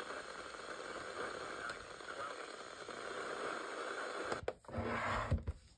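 Sangean CCRadio Plus speaker playing a weak NOAA Weather Radio signal on channel 7 (162.550 MHz): steady hiss and static with the broadcast voice faint under it, a sign of poor reception. Near the end come a couple of clicks and a brief thump, and then the sound cuts off.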